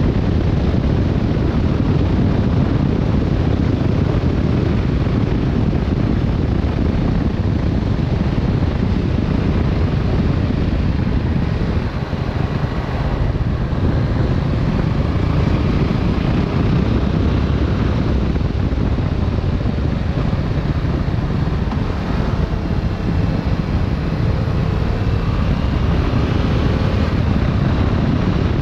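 Wind buffeting the microphone of a motorcycle on the move, over the Yamaha Tracer 7's 689 cc parallel-twin engine running under way. The engine's pitch shifts faintly a couple of times, near the middle and near the end.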